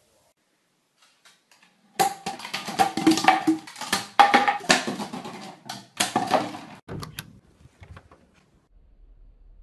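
Hollow plastic bottles knocked over and clattering on a wooden floor as a dog tips them: a dense run of knocks starting about two seconds in and dying away about five seconds later.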